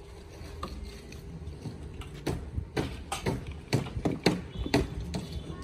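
A run of irregular sharp knocks and clatters, coming thick and fast from about two seconds in, over a low steady rumble.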